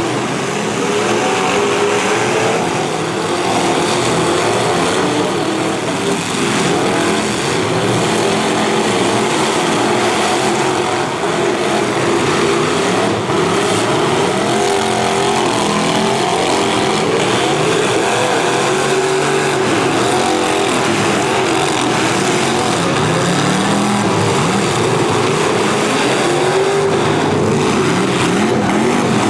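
Several demolition derby cars' V8 engines running and revving at once, loud, their pitches rising and falling over one another.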